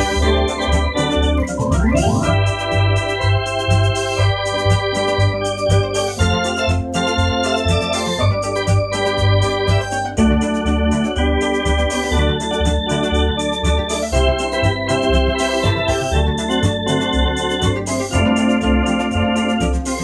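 Two-manual electronic home organ playing sustained chords over a regular pulsing bass line, with a quick upward glissando about two seconds in.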